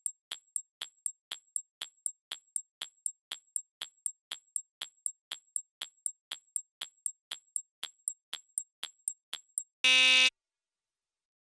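Countdown timer sound effect ticking about four times a second, then a short loud buzzer near the end signalling that time is up.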